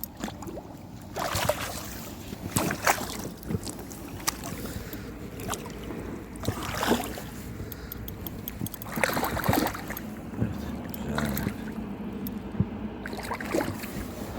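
Water sloshing and splashing in irregular bursts, several separate splashes spread over the stretch.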